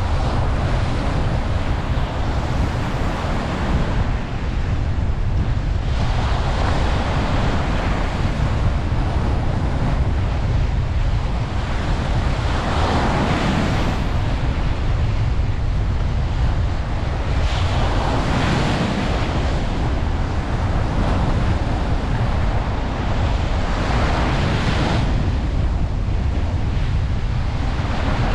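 Ocean waves breaking and washing on a beach, surging every few seconds, over a steady low rumble of wind on the microphone.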